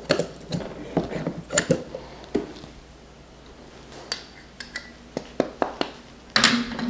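Scattered clicks, taps and knocks of espresso gear being handled: metal and ceramic parts set down and knocked. A louder, longer scraping rattle comes near the end.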